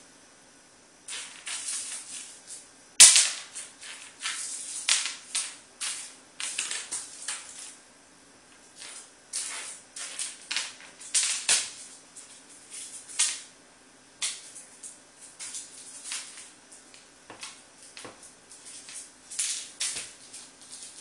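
Wrapped mint crackling and skittering across a hard floor as a cat bats and pounces on it: irregular clusters of crinkly snaps, the sharpest about three seconds in.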